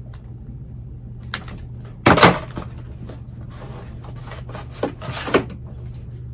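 Secateurs snipping through a basket pot: a loud crunching snap about two seconds in, with smaller clicks and crackles as the pot and roots are worked apart.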